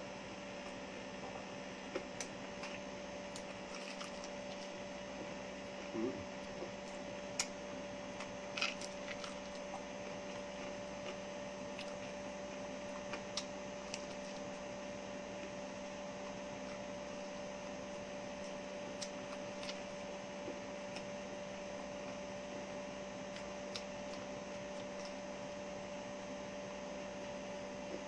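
Steady electrical hum with a few scattered faint clicks.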